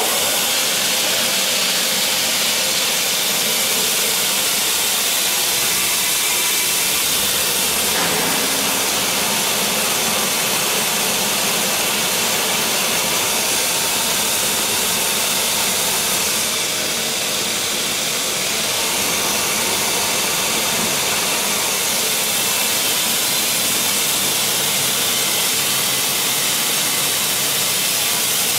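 Roasted peanut skin peeling machine running, a steady loud hiss from the machine as it works the peanuts.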